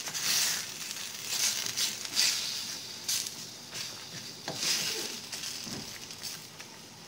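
Wooden spatula stirring fish heads and shrimp through boiling broth in a stainless steel pot: several swishing strokes over the steady hiss of the boil, getting quieter toward the end.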